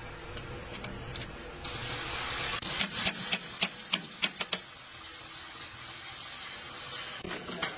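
Hammer striking a crankshaft main bearing cap on a Komatsu dozer engine block: about eight quick metal-on-metal blows in under two seconds, starting about three seconds in, with a single further knock near the end.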